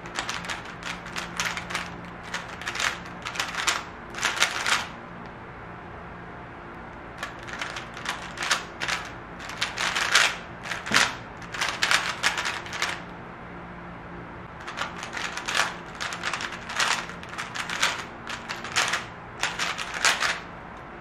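MoYu WeiLong V10 AI smart 3x3 speedcube being turned fast: bursts of rapid plastic clicking and clacking, broken by two short pauses of a second or two.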